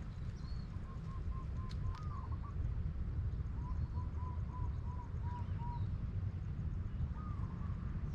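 A dove cooing in two quick runs of short, even notes, about four notes a second, over a steady low rumble of wind on the microphone.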